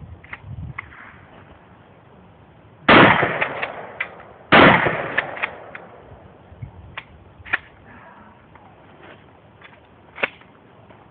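Two loud shotgun blasts about a second and a half apart, each trailing off in echo, followed by scattered fainter sharp cracks.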